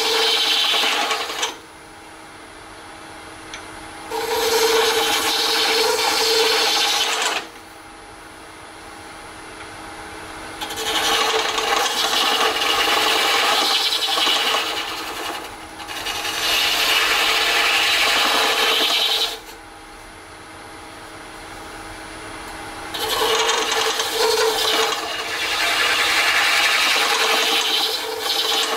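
A hollowing tool cutting into the end of an Alumilite cast-resin globe spinning on a lathe: a rasping cut that comes in about five passes of a few seconds each. Between the passes only the lathe's steady hum is left.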